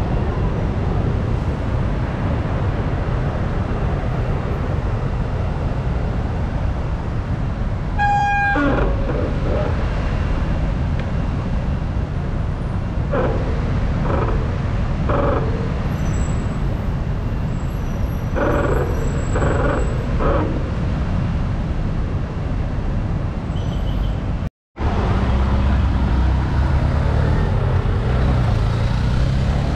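Steady wind rumble on the helmet or handlebar camera's microphone while cycling, over road traffic noise. A brief high-pitched tone, falling slightly in pitch, sounds about eight seconds in. The sound cuts out for an instant about three-quarters of the way through.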